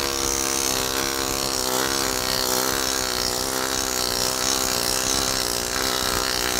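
Woodward Fab pneumatic planishing hammer running continuously, its air-driven hammer rapidly pounding sheet metal against the anvil with a steady, fast buzzing chatter as it raises a dimple in the metal.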